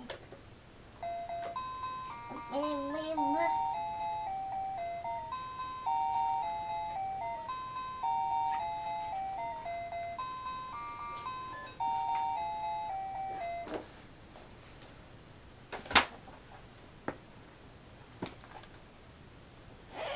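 A handheld electronic baby toy plays a simple beeping tune of stepping notes, which stops about two-thirds of the way through. After it come a few sharp knocks from board books being handled, the loudest about three-quarters of the way through.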